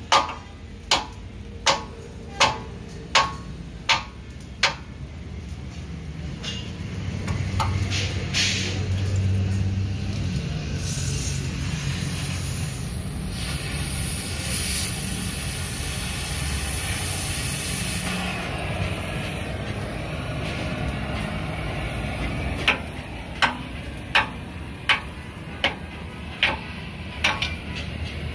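A hammer strikes the steel frame of a Hino truck chassis seven times, about one and a half blows a second. Then comes a long stretch of gas cutting torch hiss as it cuts the metal. Near the end there is a second run of about seven hammer blows.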